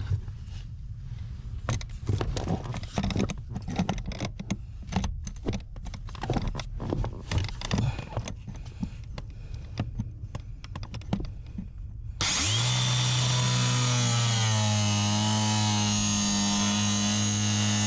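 Irregular clicking, knocking and scraping of hand work with tools for about twelve seconds. Then a power tool starts abruptly, spins up, and runs steadily, its pitch dipping slightly now and then as it takes load.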